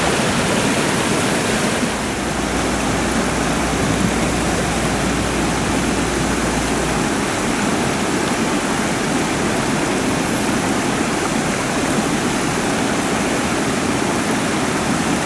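Steady rush of water spilling over a low weir, an even unbroken noise.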